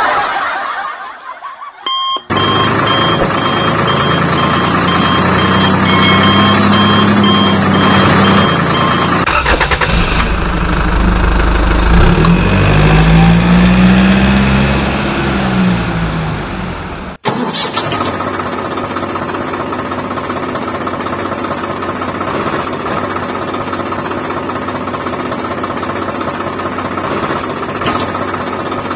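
Tractor engine running, with a rapid repeated beep over the first several seconds. About ten seconds in it revs up and down, then after a sudden cut it runs on steadily with a buzzy note.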